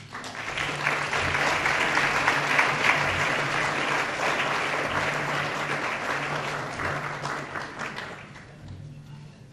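Audience applauding, a steady patter of many hands clapping that dies away about eight seconds in.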